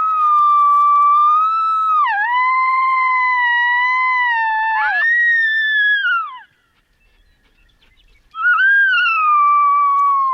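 Coyote howls: one long, high, steady howl with a brief dip in pitch, a second voice gliding up and joining it near the middle. It breaks off, and after a short gap another long howl starts.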